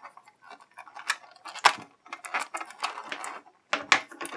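Clear plastic blister packaging tray being handled and picked at: a string of irregular sharp clicks and crinkles, the loudest about halfway through and near the end.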